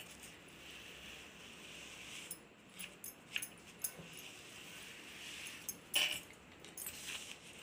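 Quiet handling of quilted fabric while a curve is marked on it with tailor's chalk: faint scratches and ticks over a steady hiss, with one brief louder sound about six seconds in.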